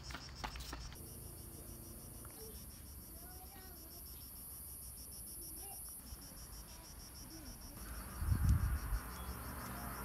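Insects shrilling steadily: a continuous high trill with a fast, even pulse running through it. A brief low rumble about eight seconds in is the loudest moment.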